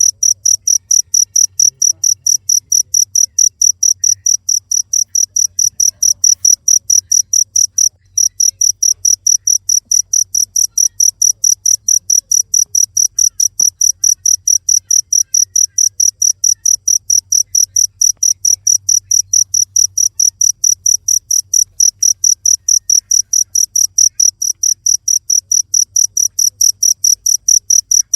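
Cricket chirping, a loud high-pitched chirp repeated evenly about four times a second, with one brief break about eight seconds in.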